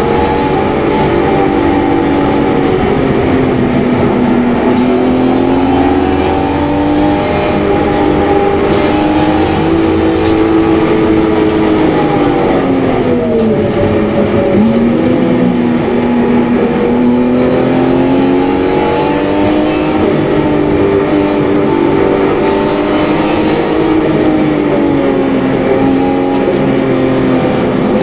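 Supercharged BMW E46 M3's straight-six engine heard from inside the cabin under hard driving at about 4,000 to 6,000 rpm in third and fourth gear. Its pitch rises and falls with throttle and gear changes, dropping sharply about halfway through and then climbing again.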